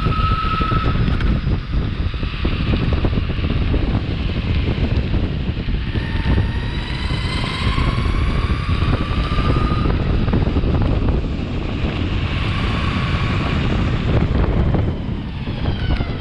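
Wind buffeting the microphone on a moving Meepo Hurricane electric longboard, over the rumble of its wheels, with the electric motors whining along; the whine rises in pitch from about six seconds in as the board speeds up.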